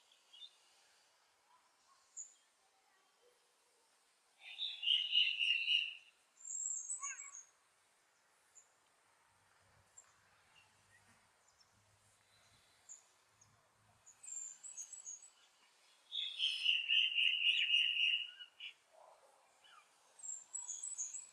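Wild birds calling: two longer bursts of rapid chirping, about four seconds in and again about sixteen seconds in, with short high chirps in between.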